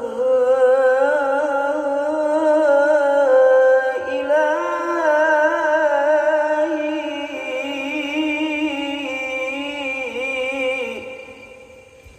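A male qori singing one long, heavily ornamented Arabic melismatic phrase without words. Held notes waver quickly and step from pitch to pitch, and the voice fades out over the last second or two.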